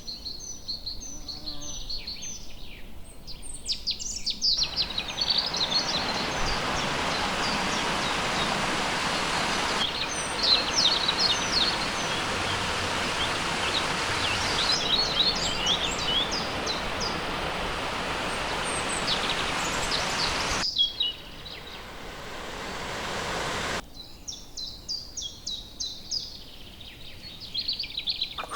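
Small birds chirping and singing. From about five seconds in until about twenty seconds in, a steady rush of flowing water runs beneath the birdsong and then cuts off suddenly.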